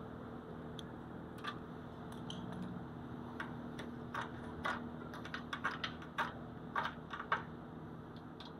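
Irregular light clicks and ticks from a freshly laid 7018 stick-weld bead and its slag cooling on the steel, sparse at first and thickening from about three seconds in, over a steady low hum.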